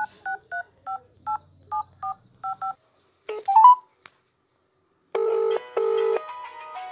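Mobile phone keypad tones as a number is dialled: about ten short two-tone beeps, then a brief rising tone. About five seconds in, the call's ringback tone gives a double ring.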